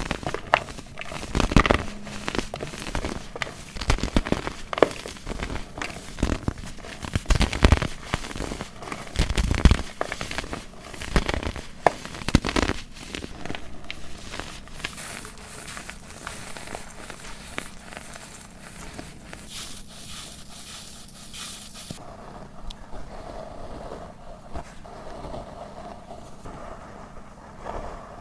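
Baking soda being crushed and crumbled, with a dense run of crisp crunches through the first half that gives way to softer, quieter crackling.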